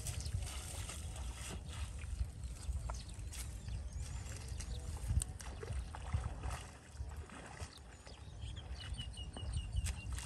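Footsteps wading through shallow water and mud in a flooded rice field, with irregular small splashes and sloshes over a steady low rumble. A quick run of short high chirps comes near the end.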